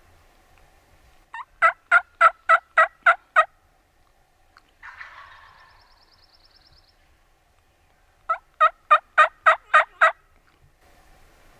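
Turkey yelping: two runs of about seven evenly spaced, loud yelps at roughly three a second, with a short rustle between them.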